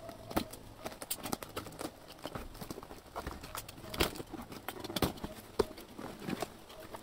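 Cardboard boxes of firecrackers being handled and shifted on a table: irregular light knocks and taps, the firmest about four and five seconds in.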